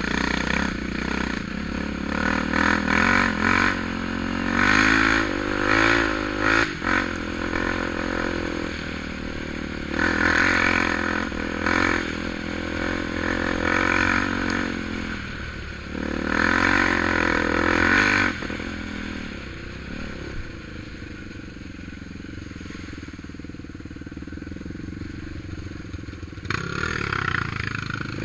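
ATV engine revving in repeated bursts, then settling to a steady idle, and revving once more near the end.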